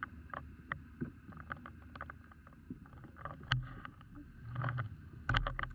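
Muffled sound from a camera hanging underwater: many scattered sharp clicks and ticks, with dull low thumps about midway and near the end.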